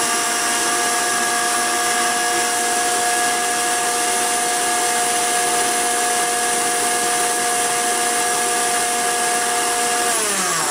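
Electric mixer grinder with a stainless-steel jar running at full speed, blending watermelon pulp with sugar, black salt and lemon juice: a loud, steady motor whine. About ten seconds in it is switched off and the whine falls in pitch as the motor runs down.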